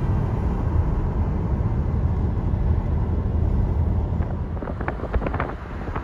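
Steady low rumble of a car driving, engine and road noise, with a few short ticks near the end.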